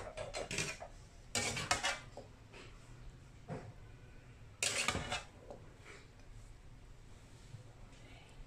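Kitchen utensils clinking and scraping against pots and dishes in a handful of short bursts, the loudest a little after one second in and just before five seconds.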